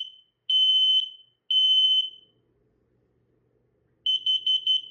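Kidde KN-COSM-BA combination smoke and carbon monoxide alarm going through its self-test. Its piezo horn finishes the smoke pattern with high-pitched long beeps of about half a second each, falls quiet for about two seconds, then gives four quick beeps near the end: the carbon monoxide alarm pattern.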